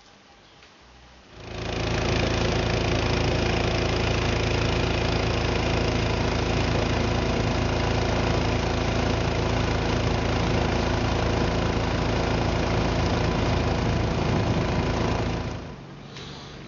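Engine of a wooden river boat running steadily under way, with a dense hum and rush. It starts abruptly about a second in and stops shortly before the end.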